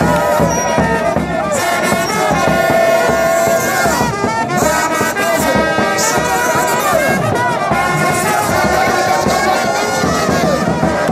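Brass band music playing loudly and without a break, over the noise of a crowd.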